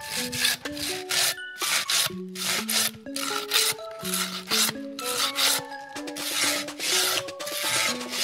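Silky Sugoi 360 pruning saw's Japanese-steel blade cutting through a dry branch with rasping back-and-forth strokes, about two a second.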